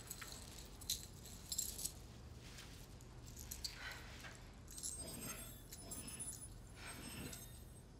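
Faint, scattered metallic jingling and clinking of small metal objects being handled, a few soft clinks about a second in and more between about five and seven seconds, over a low steady hum.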